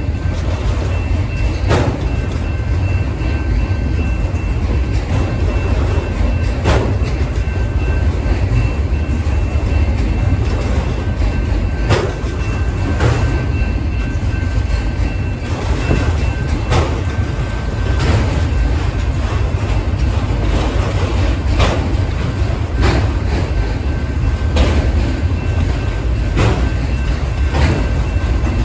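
Freight train of enclosed autorack cars rolling past at close range: a steady low rumble with wheels clicking over rail joints every second or two, and a faint steady high tone above it.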